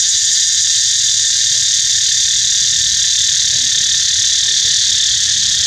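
Loud, steady chorus of insects, a shrill buzz with a fast pulsing that evens out after a second or two.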